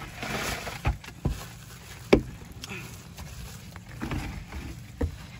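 Wet leaves and plastic litter rustling and crinkling as gloved hands sort through the catch, with a few sharp knocks against the boat, the loudest about two seconds in.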